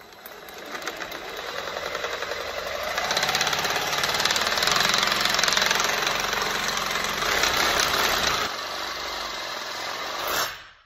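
Power saw cutting a plastic Hyfax slide strip clamped in a vise, a steady buzzing cut with a fast, even rattle in it. The cut builds over the first two seconds, eases after about eight seconds and stops shortly before the end.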